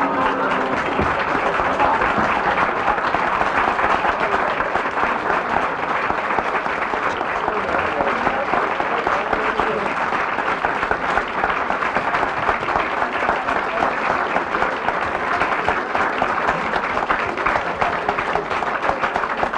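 Audience applauding, long and steady.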